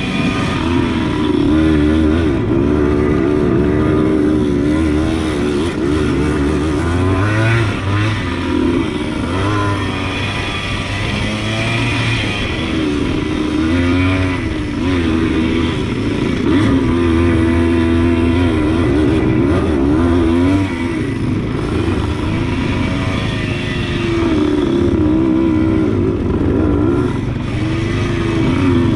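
Suzuki TS100 two-stroke single-cylinder dirt bike engine running under way on a trail ride, its pitch repeatedly rising and falling as the throttle is opened and closed.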